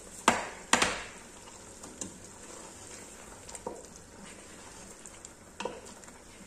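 Wooden spoon stirring chicken and vegetables in a large aluminium stockpot, knocking against the pot: two loud knocks near the start, then a few fainter ones. A steady sizzle of the food frying runs underneath.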